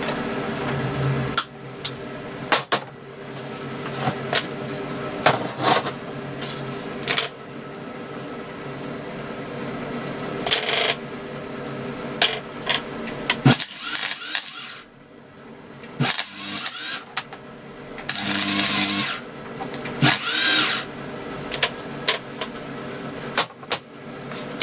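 SIP MIG welder striking short arcs, each one a crackling burst. The bursts come as brief ticks at first, then several longer runs of about a second each in the second half. A steady electrical hum from the welder runs underneath.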